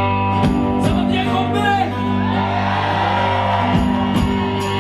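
Live band music: held chords over a steady bass with cymbal strokes, and a man's voice singing long sliding notes over it.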